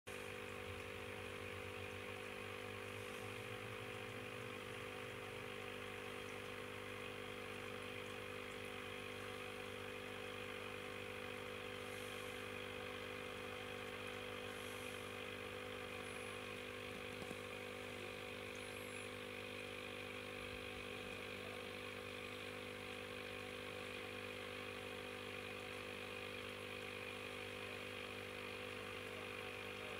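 Steady low electrical hum of a small motor, with several constant tones over a faint hiss, unchanging throughout.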